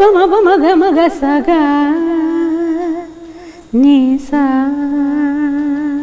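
A woman singing alone, humming without words: a wavering melodic phrase, then long held notes with vibrato. There is a brief break about three seconds in.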